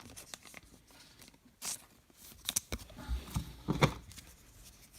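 Baseball trading cards being handled and slid through by hand, with soft rustles and a few short card-against-card clicks, the sharpest a little under two seconds in, around two and a half seconds in, and near four seconds in.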